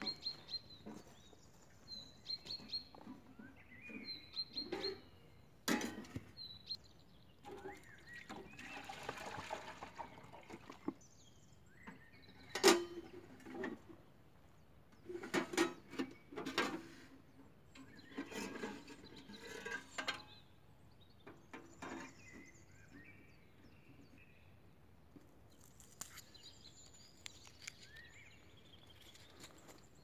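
Small birds chirping, with scattered knocks, metallic clinks and rustling from a stainless-steel wood-burning camp samovar being handled and set up; the loudest is a single sharp knock about halfway through.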